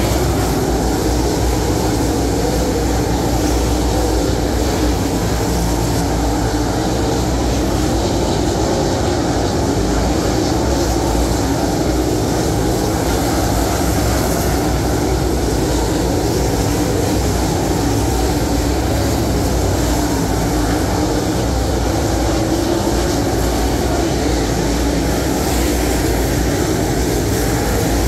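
A field of dirt late model race cars' V8 engines running at race speed around the dirt oval, loud and continuous, with no let-up as the pack laps.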